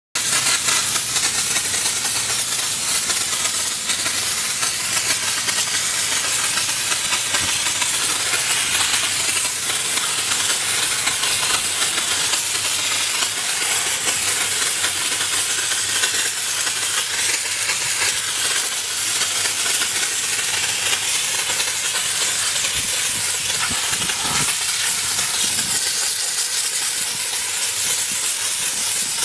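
Steam jetting from the nozzle of a car steam-wash machine: a loud, steady hiss that goes on without a break.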